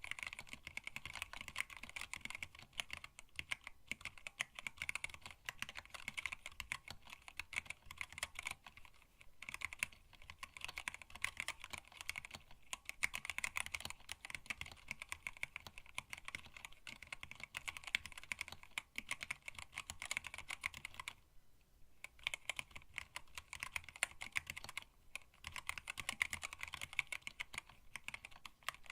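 Continuous fast typing on a hand-wired split mechanical keyboard with Tealios linear switches, an acrylic case and blank black PBT keycaps, the keystrokes clicking densely, with a few brief pauses, the longest about 21 seconds in.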